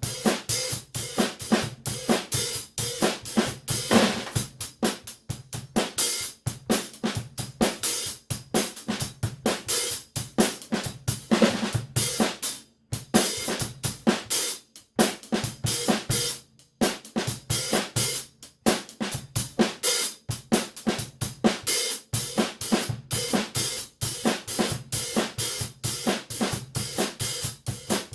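A drum kit played as a groove, featuring a pair of 14-inch Zildjian K Sweet hi-hats over snare and bass drum, with rapid, steady strokes. It breaks off briefly a few times around the middle.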